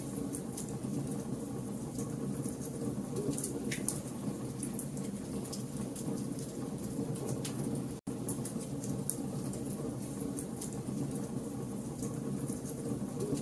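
Log campfire burning: a steady low rumble of flames with scattered sharp crackles and pops. The sound cuts out for an instant about eight seconds in.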